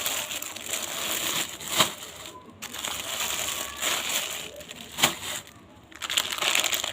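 Crinkling, rustling handling noise, like material or packaging being handled close to the microphone, with a couple of sharp clicks about two and five seconds in.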